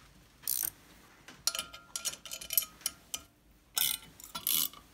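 Ratcheting wrench clicking in several short runs as it turns the nut on an all-thread puller, drawing the rocker arm shaft out of a small Yamaha four-stroke cylinder head.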